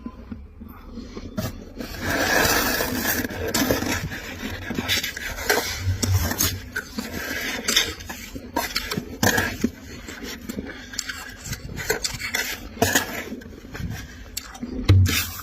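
A spoon scraping and scooping dry refrozen freezer frost in a box, in a dense stretch of scraping early on and then many short separate strokes, the loudest near the end.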